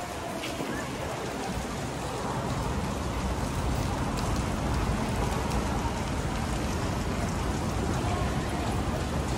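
Steady rain falling and splashing on wet pavement, an even hiss. A low rumble grows louder after a few seconds.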